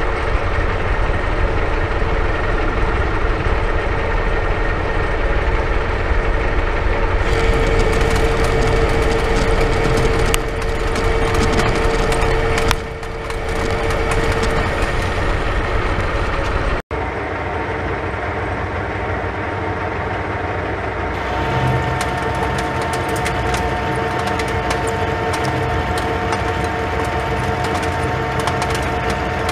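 Metal lathe running and turning a round steel part with a carbide insert tool: a steady motor and gear whine under the hiss of the cut. The hiss grows stronger for several seconds at a time, and the sound breaks off for an instant about seventeen seconds in.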